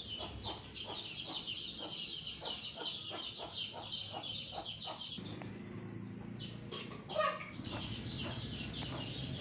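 Birds chirping in a dense, steady chorus that pauses about five seconds in, leaving a low hum and a few falling chirps, then resumes near the end.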